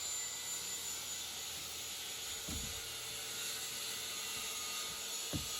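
Steady high-pitched outdoor hiss with a few faint steady tones, broken by soft low thuds about halfway through and again near the end.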